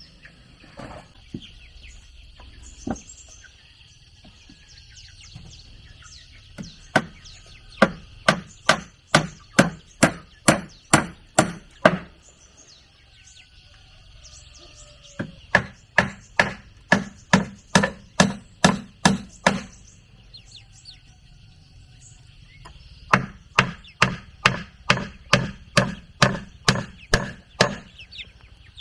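Blows struck on wood by hand in three runs of about a dozen strikes each, roughly two or three a second, with short pauses between the runs.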